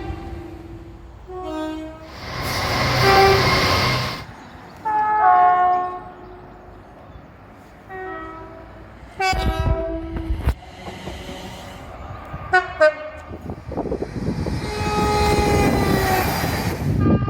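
A series of British train horn blasts from passing trains: short toots and longer blasts, several stepping between a high and a low note. The rushing noise of trains passing comes loudest about two to four seconds in, again near ten seconds, and through the last few seconds.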